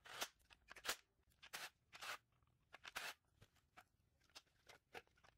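Faint, scattered clicks and rustles of hard plastic radiator fan parts being handled and set down, about a dozen small knocks spread across a few seconds.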